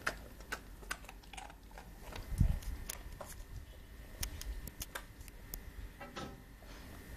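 Basset hound chewing and licking after a hand-fed treat: scattered small, sharp clicks, with one low thump about two and a half seconds in.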